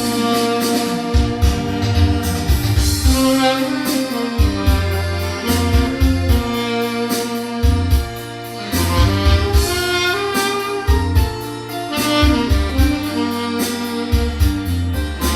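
Tenor saxophone on a stainless steel mouthpiece, recorded dry without effects, playing a slow melody over a backing track with keyboard, bass and a steady drum beat.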